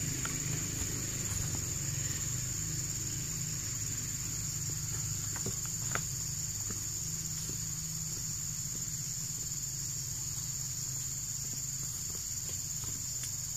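Steady high-pitched drone of insects, with a low hum underneath and a few faint clicks about halfway through.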